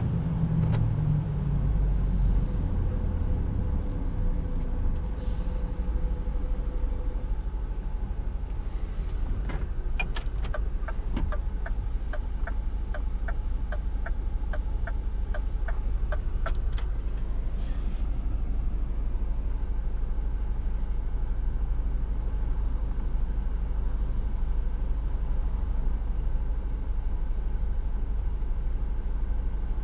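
Scania S460 truck's 13-litre six-cylinder diesel running, heard inside the cab as a steady low rumble. A regular ticking about twice a second runs for several seconds midway, and a short hiss follows.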